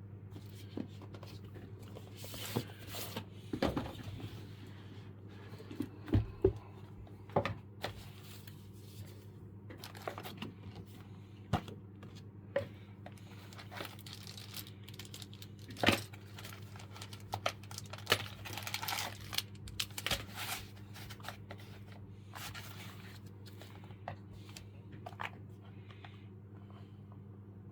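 Packaging being handled: irregular crinkling and tearing of paper or plastic wrap, with scattered sharp clicks and knocks, over a steady low hum.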